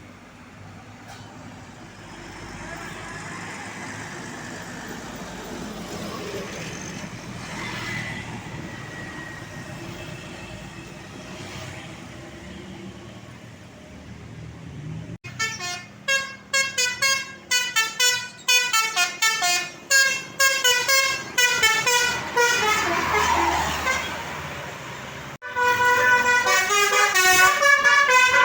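Road traffic noise of passing vehicles, then from about halfway a bus 'telolet' multi-tone air horn playing a fast, jingling melodic tune of short notes. It breaks off abruptly near the end and starts again louder.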